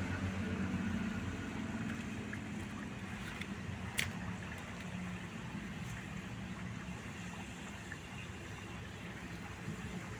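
Pan of chicken broth boiling hard over an open wood fire, a steady bubbling with the fire burning under it, and one sharp crackle about four seconds in. A low rumble runs underneath, louder at the start and easing off.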